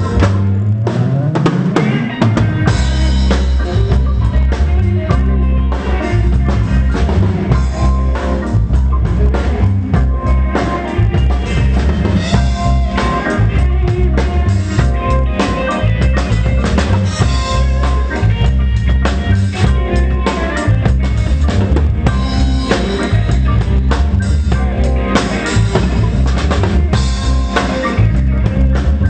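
A live pop band plays a song through the PA, led by a drum kit with bass drum and snare over a full band. A rising slide in the low notes opens it.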